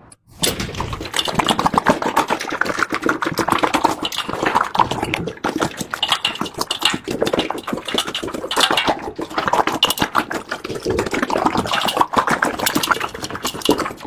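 Several dogs eating from their bowls: dense, continuous crunching and clattering of food and bowls.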